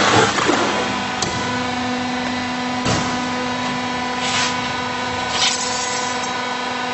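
Two-head sawdust wood block machine running with a steady electric hum as it presses out compressed blocks. There is rustling at the start, a few sharp clicks, and two short hisses near the end.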